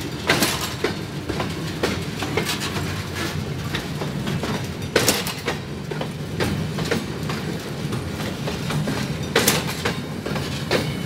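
Covered hopper wagons of a freight train rolling past at close range: a steady wheel rumble with sharp clacks as the wheels cross rail joints, the loudest about five seconds in and again about nine seconds in.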